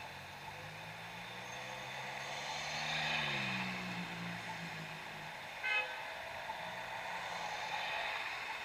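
Motor vehicle engine rising in pitch as it pulls up close, then a single short horn blast about two-thirds of the way in, over steady traffic noise.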